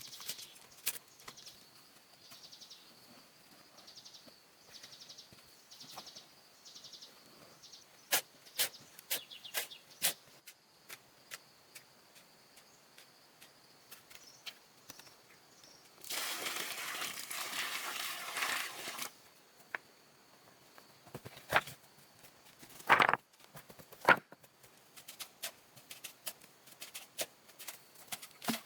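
Scattered knocks and taps from outdoor handwork, with a noisy rasping stretch of about three seconds near the middle and a few louder knocks after it. A faint high chirp repeats about once a second during the first few seconds.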